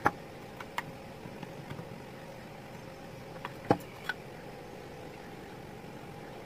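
Scattered sharp clicks and knocks of an old metal electric drill's motor housing being handled as its end cover is worked off, the loudest knock a little past halfway, over a steady background hum.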